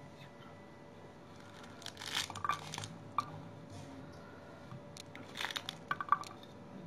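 Pomegranate rind tearing and crackling as hands pull the scored fruit apart into segments, in two bursts about two and five and a half seconds in, with a single sharp snap between them.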